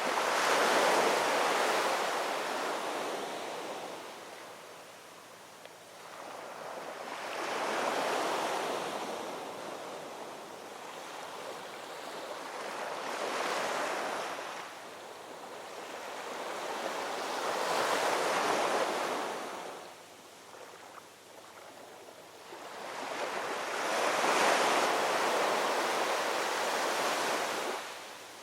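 Ocean waves rolling in and breaking on the shore: five surges of surf, one every five or six seconds, each rising and then washing back out.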